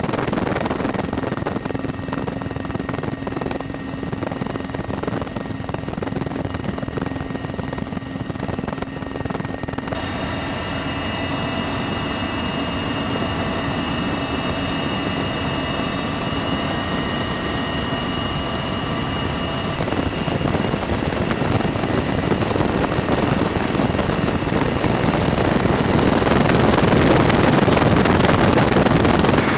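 CH-53E Super Stallion helicopter in flight, heard from inside the cabin: steady rotor and turbine noise with high, thin whining tones. The sound changes abruptly about ten and twenty seconds in, and grows louder near the end.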